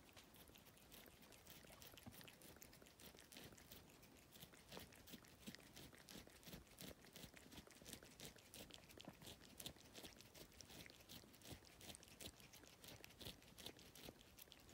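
A cat eating a slice of banana: quiet chewing and mouth clicks, several a second.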